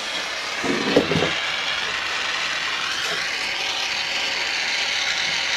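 Gas brazing torch burning with a steady hiss while it heats a pipe joint for silver soldering. There is a brief low sound about a second in.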